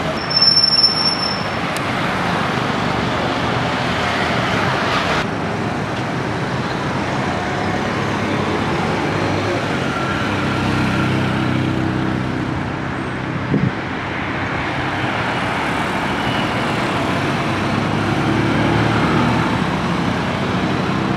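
Steady road traffic, with motorcycles and cars passing and engine and tyre noise. A brief high-pitched squeal about half a second in, and a short knock about two-thirds of the way through.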